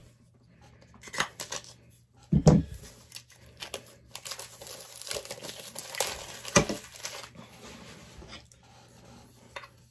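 Funko Soda collectible can being opened: packaging torn and plastic crinkled, with a few knocks from handling, the loudest a little over two seconds in.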